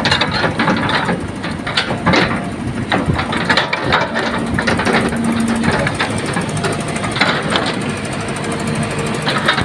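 Hydraulic excavator at work, its diesel engine running steadily under irregular sharp clanks and knocks from the machine, and a short steady tone for about a second near the middle.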